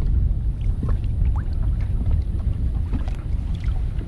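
Low, gusty rumble of wind buffeting the microphone, with a few faint clicks and light handling noises.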